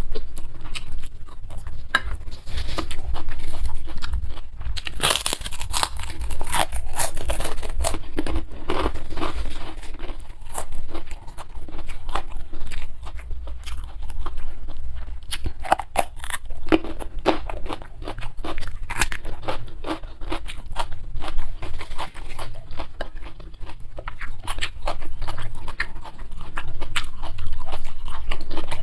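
Close-miked eating: chewing and crunching mouthfuls of food, with many short crunchy bites and wet mouth clicks, busiest around five to nine seconds in and again around fifteen to twenty seconds in.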